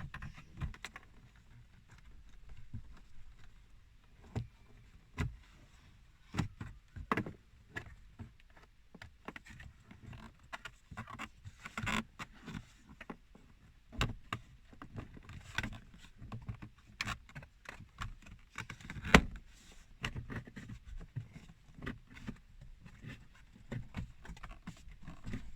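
Plastic dashboard trim panels being handled and pressed back into place, giving irregular clicks, taps and knocks, with one sharper knock about two-thirds of the way through.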